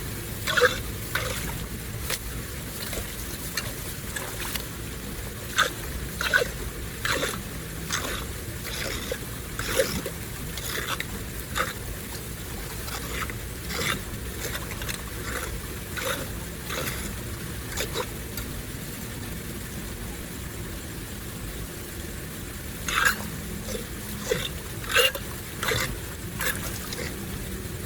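Water running with a steady rush, broken by frequent short, sharp splashes or knocks that come irregularly and bunch together in a few flurries.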